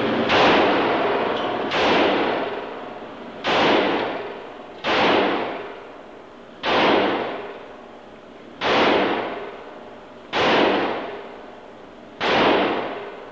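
Eight pistol shots fired one at a time, about one every one and a half to two seconds, each a sharp crack followed by a long fading echo in the enclosed indoor range.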